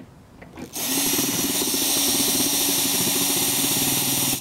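Cordless drill/driver running steadily under load, backing out the fastener of an aluminum railing's base rail support. It starts about a second in and holds one even whine.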